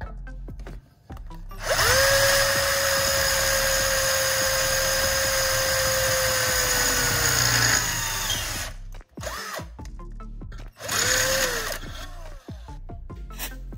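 Electric drill running at speed for about six seconds, its pitch sagging just before it stops, then a second short burst of the drill about three seconds later.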